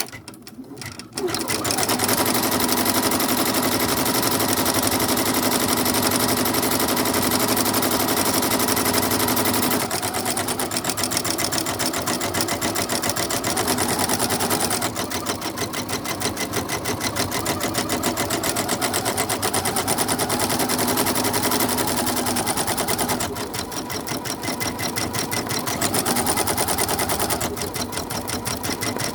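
Janome MB-7 multi-needle embroidery machine stitching a design at a fast, even stitch rate. It starts up about a second in, and its loudness shifts a few times as it runs.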